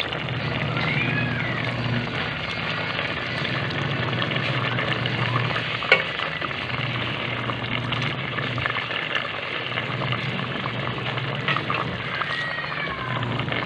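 Pork adobo with tomato sauce and saba banana slices sizzling and bubbling in a metal pot: a steady crackling hiss, with one sharp click about six seconds in.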